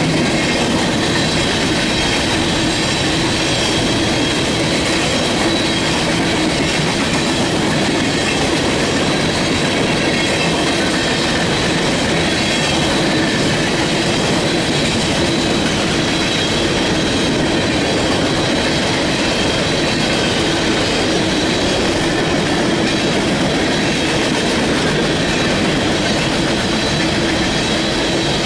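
Empty coal hopper cars of a CSX freight train rolling past steadily, with a steady high-pitched squeal from the wheels over the rolling noise.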